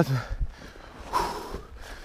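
A man breathing hard while trudging through deep snow, with one long exhale about a second in and the soft crunch of his footsteps.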